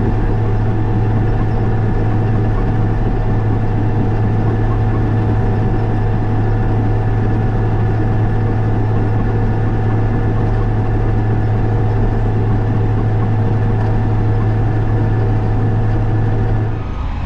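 Diesel engine of a piece of earthmoving equipment running steadily and loud, with an even low hum, close by; it drops away near the end.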